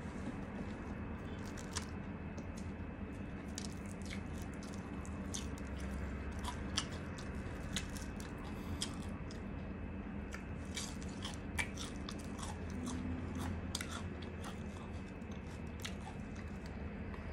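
Eating breadcrumb-coated deep-fried chicken: irregular crunches and crackles of the crisp crust being chewed and torn, with wet chewing, over a steady low hum.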